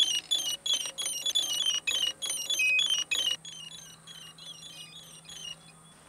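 Quick strings of short, high electronic beeps at several pitches from a MikroKopter octocopter being powered up, dense for about three seconds and then sparser and fainter, with a low steady hum underneath in the middle.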